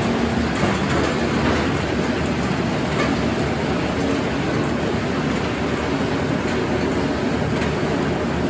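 Circular sawmill running: the large circular head saw and its drive machinery make a loud, steady mechanical noise with a faint constant hum.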